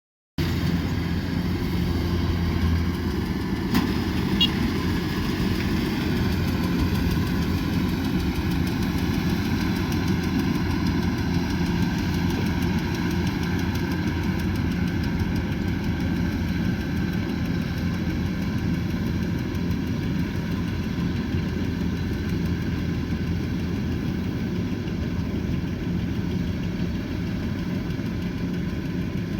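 Kubota combine harvester's diesel engine running steadily with a low, even hum, with a brief click about four seconds in.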